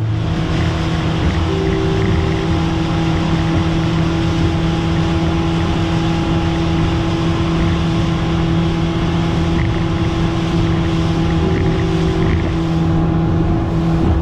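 Fishing boat's engine running steadily at cruising speed: a constant, loud drone under a steady hiss.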